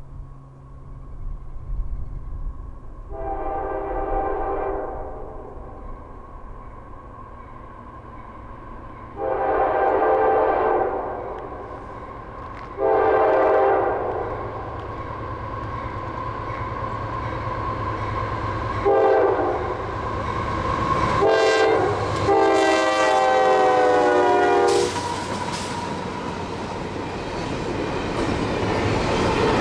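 A diesel freight locomotive's multi-note air horn sounds a series of blasts for a grade crossing as it approaches with a double-stack container train: two long blasts, a short one, two more short ones and a final long one, over the low rumble of the engine. Near the end the train reaches the crossing and its wheels clatter loudly over the rails.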